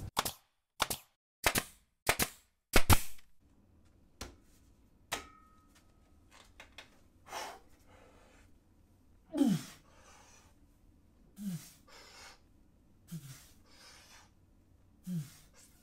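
A man grunting and exhaling hard as he hangs from a pull-up bar straining to pull up: short breathy groans about every two seconds, each falling in pitch. Before them, in the first few seconds, comes a run of sharp knocks and clicks.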